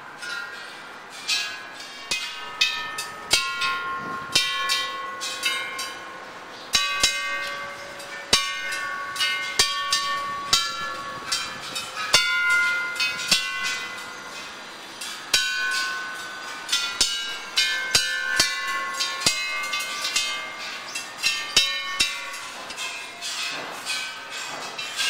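A row of hanging metal temple bells struck one after another, about one to two strikes a second, each bell ringing on at its own pitch so the tones overlap.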